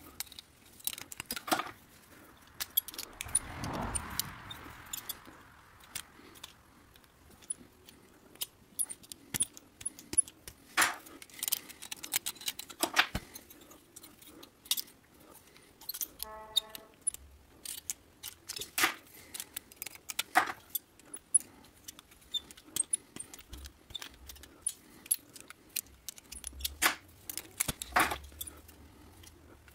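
Scattered light metallic clicks and clinks of thin copper petals and hand tools being handled as the petals are bent and shaped. There is a soft rustle about four seconds in and a brief squeak about sixteen seconds in.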